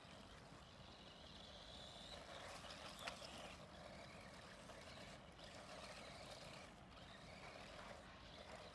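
Faint, distant whine of a 1/18-scale RC monster truck's electric motor as it drives, with one sharp click about three seconds in.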